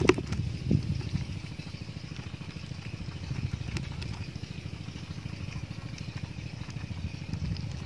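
A small engine running steadily in the background with a low, even putter. A faint click comes about four seconds in.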